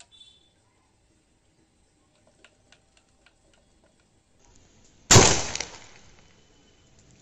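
Homemade PVC-pipe calcium carbide cannon firing: a few faint clicks, then one sharp bang about five seconds in as the acetylene gas from carbide and water ignites, dying away over about a second and a half.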